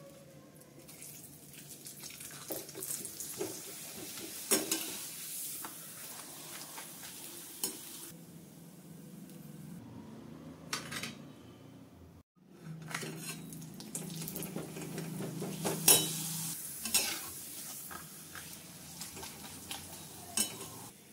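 Potato papad deep-frying in hot oil in a metal kadhai: a steady sizzle, with a slotted spoon clicking and scraping against the pan now and then. The sound cuts out briefly a little past the middle, then the sizzling resumes.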